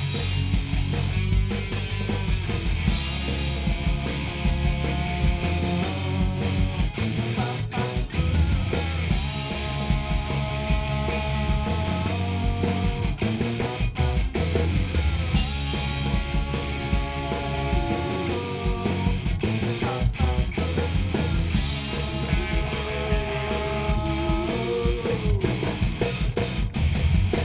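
Live rock band playing an instrumental passage: electric guitars carrying a melody of held notes over bass guitar and a drum kit, with no singing.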